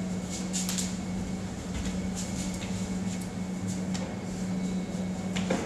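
Quiet room tone: a steady low hum with faint scattered clicks and rustles, and a soft knock near the end.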